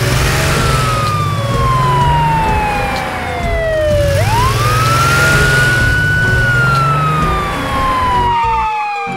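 Police car siren wailing in slow sweeps: a long fall in pitch, a quick rise about four seconds in, then another long fall. A low wavering drone runs underneath.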